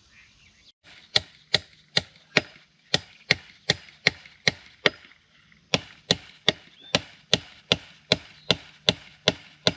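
Steady, evenly spaced hammer blows on fence hardware, about two and a half a second, in two runs with a short pause about five seconds in, as fence fittings are bent into place.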